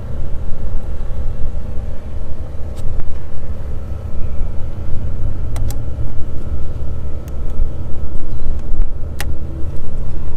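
Continuous low rumble with a few sharp metallic clicks, spaced a couple of seconds apart, from hand tools working the locking hub's inner snap ring.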